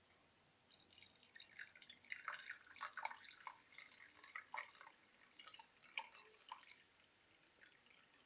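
Faint moka pot coffee trickling and dripping in short, irregular spurts, starting about a second in and dying away near the end.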